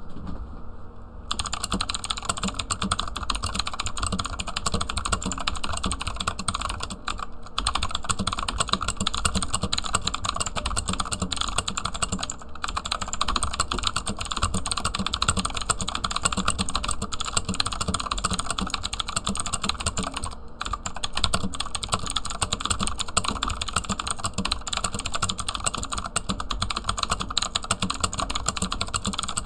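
Continuous fast typing on a HUO JI E-Element Z-77 mechanical keyboard with clicky Outemu Blue switches: a dense stream of sharp key clicks that starts about a second in and breaks off briefly a few times.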